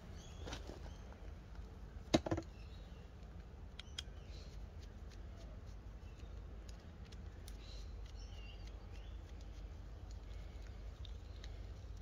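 Faint clicks and rustles of a fan speed controller and its ferrule-crimped wires being handled, with one sharper click about two seconds in, over a steady low rumble.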